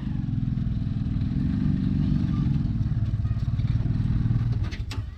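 Tuk-tuk (auto-rickshaw) engine running as the vehicle is driven in, its drone swelling and easing with the throttle. It eases off near the end, with a sharp click just after.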